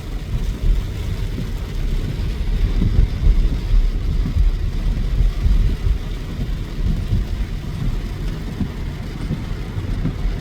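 Low, uneven rumble of wind gusting against the microphone, with no voices.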